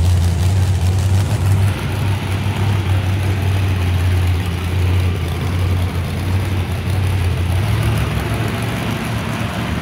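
A vehicle engine idling steadily with a deep, continuous hum, which eases somewhat near the end.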